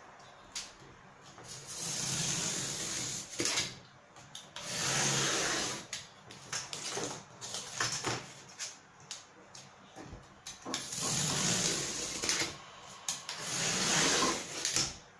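Utility knife blade drawn through cardboard along a steel ruler, cutting off strips in several long strokes of about a second each. Short knocks come between the strokes as the ruler and hand shift.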